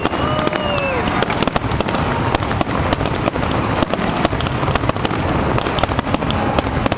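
Aerial fireworks shells bursting in a dense, continuous barrage, bangs and crackles following each other several times a second. A brief whistling tone rises and falls in the first second.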